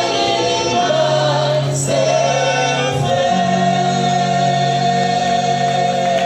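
Choir singing, changing notes about once a second, then holding one long chord from about halfway through.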